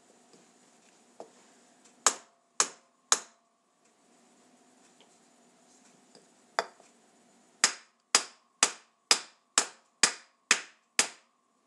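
Hammer striking a block of wood to tap a sealed bottom-bracket bearing cup into a BMX frame's American bottom-bracket shell. Three blows about two seconds in, one more a little past halfway, then a run of eight steady blows about two a second.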